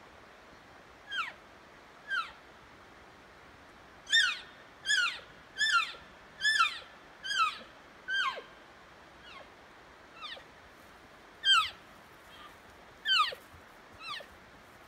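Elk mewing: about a dozen short, high-pitched calls, each sliding down in pitch, with a quick run of them, one every second or less, in the middle stretch.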